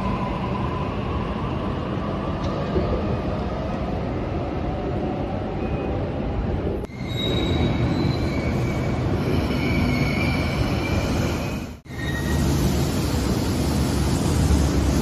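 Suburban electric train running through the station with a steady rumble of wheels on rail; from about halfway in, the wheels squeal with a high whine. The sound drops out briefly twice, about halfway and near the end.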